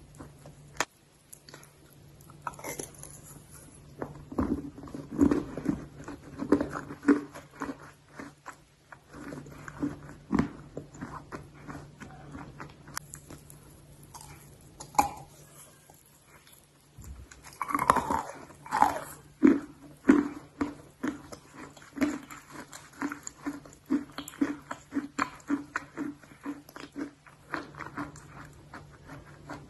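A person biting into and chewing hard, dry clay close to the microphone: sharp crunches as pieces break off, then steady rhythmic chewing of about two chews a second, over a faint steady hum.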